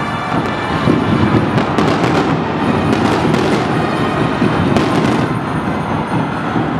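Fireworks bang with a series of sharp cracks over a loud, continuous crowd roar. The cracks stop after about five seconds.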